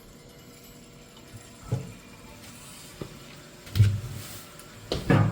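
A tool banging on a clogged boiler drain: about five dull knocks, the heaviest about four and five seconds in, over a faint steady hiss.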